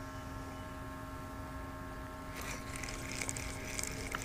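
A small motor's steady hum with several faint steady whining tones. About halfway in, a soft high hiss joins it.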